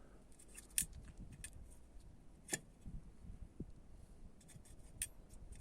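Small metal parts of an old mortise lock being handled while a spring is fitted into the lock case: scattered light clicks and taps, with three sharper clicks about a second in, midway and near the end.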